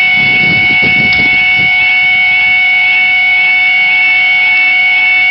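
Level crossing warning alarm sounding without a break: a loud steady high tone with a fainter warbling tone over it. This is the crossing's broken alarm.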